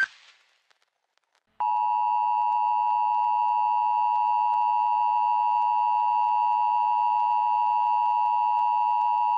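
Emergency Alert System attention signal: the steady two-tone alert (853 and 960 Hz sounded together) that announces an emergency warning broadcast. It starts about a second and a half in and holds unchanged for about eight seconds.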